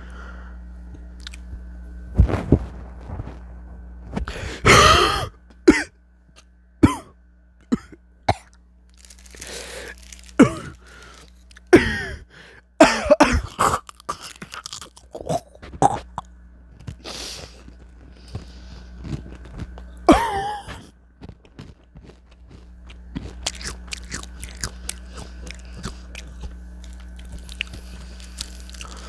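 A smoker's coughing fit: repeated hard coughs and throat clearing mixed with crunching bites of potato chips. After about twenty seconds the coughing stops and close-up crunchy chewing goes on.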